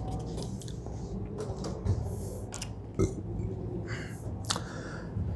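Faint room tone with a few soft clicks and knocks, about three scattered through it.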